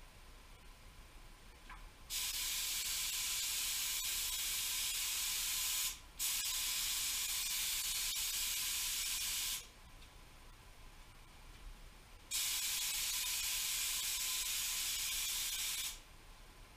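Gravity-feed paint spray gun hissing with compressed air in three long passes of about three to four seconds each, the first two split by a very short break. It is a test spray of thinned single-stage paint.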